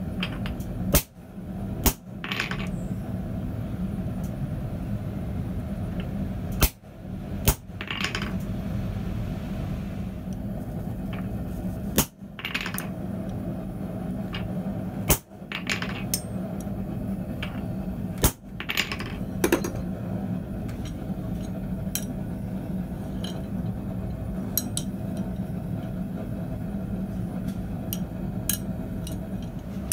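Hammer blows on a handled punch drifting a hole through a red-hot steel tong jaw on a steel block: about seven sharp metal strikes a few seconds apart, some with a short ring, over a steady low hum. Lighter metal clinks follow in the last third.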